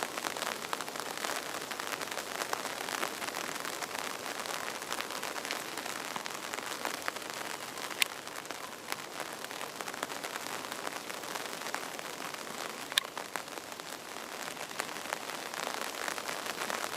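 Steady rain falling, a dense patter of many small drops, with two sharper, louder drop hits, one about halfway through and one later on.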